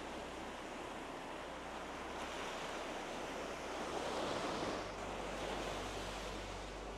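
Small waves washing along a shoreline, mixed with wind, swelling briefly about four seconds in.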